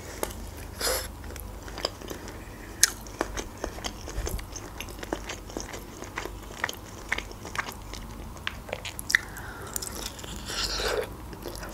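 Close-up eating sounds of someone biting into and chewing a sauced chicken wing: a run of small mouth clicks and chewing noises, with a louder bite about ten seconds in.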